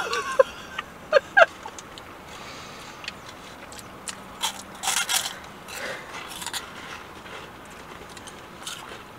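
Eating sounds: a few short squeaky vocal sounds in the first second and a half, then crunching and crinkling around the middle as crunchy cinnamon twists are chewed and paper wrappers handled.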